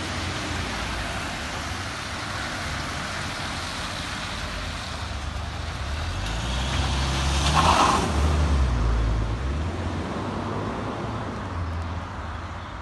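A white panel van passes close by on a wet road. Its engine and tyre hiss swell to a peak about eight seconds in, then fade, over a steady hiss of traffic on wet tarmac.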